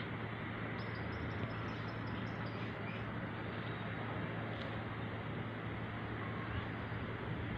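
Steady wind, an even rushing hiss with a low hum underneath.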